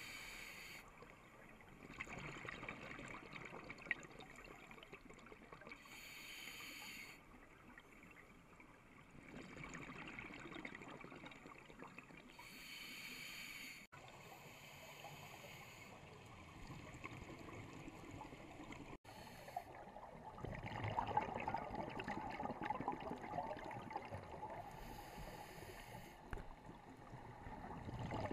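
Scuba divers' regulator exhaust bubbles, heard through an underwater camera housing: bursts of bubbling about every six seconds over a steady underwater hiss, louder and denser about two-thirds of the way through.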